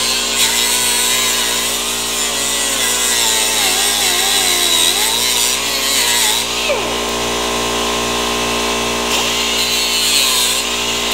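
Handheld power grinder running continuously against metal, its pitch wandering up and down as the load changes, with a change in tone about two-thirds of the way through.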